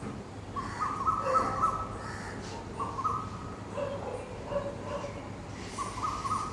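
Asian koel calling: clear, repeated notes in three phrases, the first and loudest about a second in, with fainter lower-pitched notes between them.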